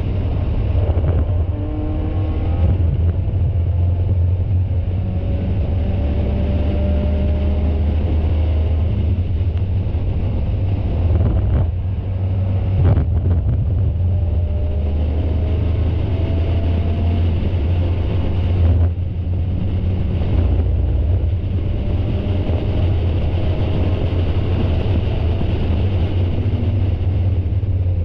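Spec Miata's four-cylinder engine heard from on board at racing speed, its note climbing through the revs again and again, with short breaks around a third and two-thirds of the way in, as when lifting or shifting. Wind noise runs underneath.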